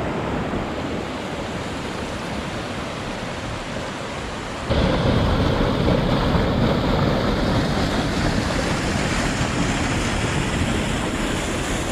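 Storm runoff rushing through a normally dry desert wash: a steady roar of water that jumps suddenly louder about five seconds in.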